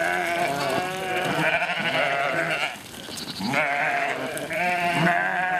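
A flock of ewes and lambs bleating, many calls overlapping at different pitches, with a short lull a little past halfway.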